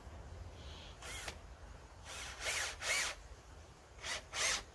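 Cordless drill-driver fastening the backrest boards of a pallet-wood bench. It runs in about five short bursts, each motor whine rising and falling in pitch as the trigger is squeezed and let go.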